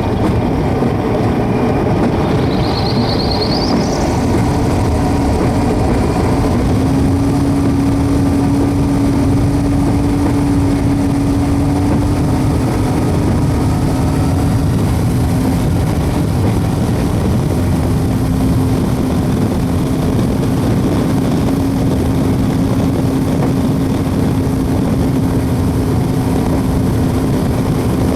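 Small homebuilt WAR Corsair replica's piston engine and propeller running steadily while taxiing, with a steady low hum in the drone. A brief high-pitched tone is heard a few seconds in.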